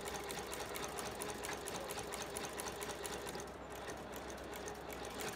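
FOXSEW cylinder-arm shoe repair sewing machine running and stitching in a fast, even rhythm of needle ticks, over a steady hum.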